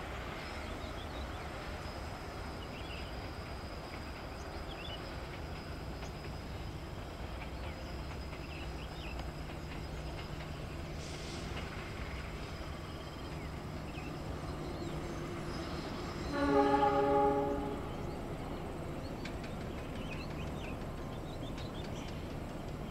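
Passenger train's diesel locomotive running with a steady low rumble, then sounding its horn once, a chord of several tones lasting about a second, about three-quarters of the way through.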